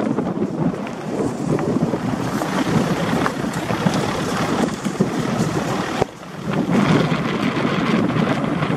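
Wind buffeting the microphone of a camera moving along a stony dirt track, a rough steady rumble with a few faint clicks, dropping away briefly about six seconds in.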